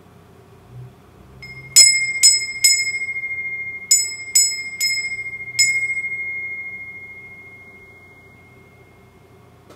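Small metal wind bell struck by its clapper seven times: three quick rings, a pause, three more, then a single last ring. It holds one clear high note that dies away slowly after the last strike.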